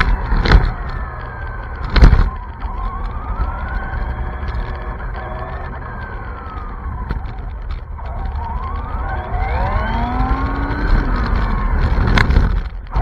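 High-speed RC car's motor whining as it accelerates and slows, the pitch rising and falling several times over a steady low rumble of road and wind on the onboard camera's microphone. A few sharp knocks in the first two seconds, as the car jolts.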